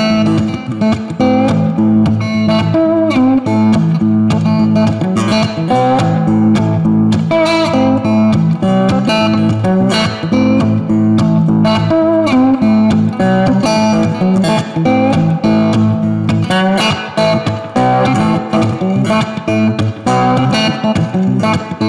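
Background music: guitar-led instrumental with a steady rhythm of plucked notes.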